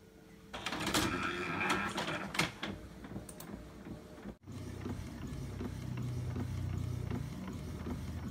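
Epson L360 ink-tank inkjet printer printing a page: whirring and clicking as it starts and feeds paper, breaking off abruptly about four seconds in, then a steadier low mechanical hum with light ticks as the page feeds through.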